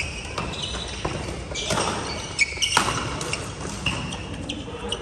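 Badminton rally: several sharp racket hits on the shuttlecock, with sneakers squeaking briefly on the court floor.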